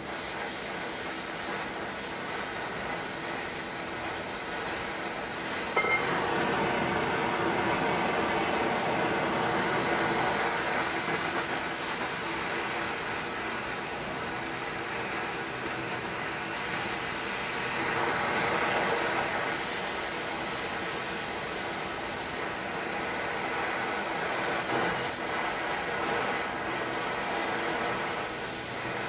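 Gas torch flame hissing steadily while heating the vise's metal parts. There is a sharp click about six seconds in, after which it is a little louder.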